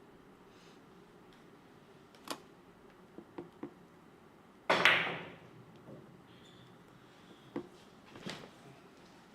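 Four-ball carom billiards being played: sharp clicks of cue and ivory-hard balls, with one much louder crack of a ball strike a little before halfway, ringing out briefly, then two more clicks near the end.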